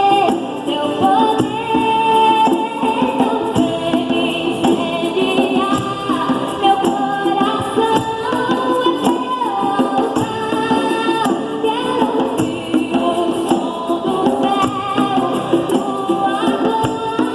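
A group of voices singing a melody over hand percussion that keeps a steady, busy beat.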